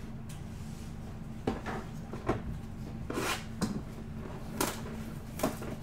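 Trading cards and a cardboard hobby box being handled on a table: about six short taps, knocks and rustles, spaced irregularly.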